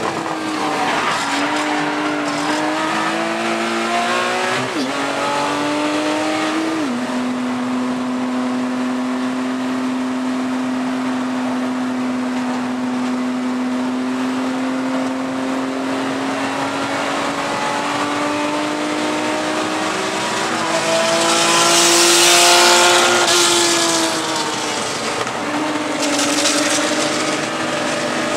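Porsche Cayman race car's flat-six heard from the cockpit at full throttle. It pulls up and shifts up twice in the first seven seconds, then holds a long, slowly rising note. About 21 s in a loud rushing hiss swells over the engine, and the revs drop and build again near the end.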